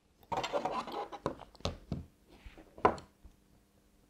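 Hands handling an opened plastic-cased multimeter and a screwdriver on a table: a rubbing rustle in the first second, then a few light clicks and knocks, the sharpest about three seconds in.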